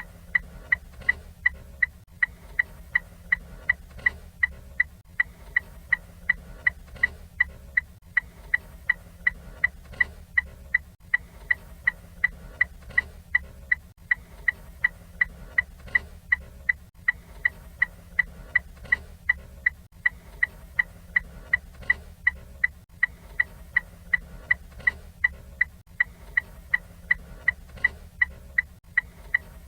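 Ford Fiesta turn-signal indicator ticking, a fast, even run of sharp clicks over a faint low hum.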